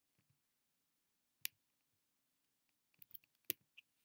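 Faint clicks of a computer mouse and keyboard against near silence: one sharp click about a second and a half in, then a quick run of several clicks near the end.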